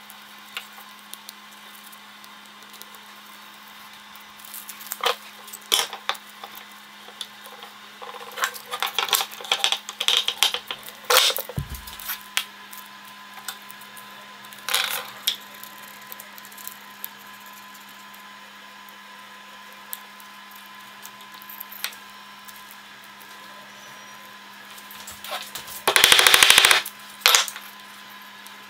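Workbench handling noises: scattered clicks, taps and knocks of a stick, tools and wood on the bench, with a busier cluster about a third of the way in and one loud, rapid rattling burst near the end, over a steady hum.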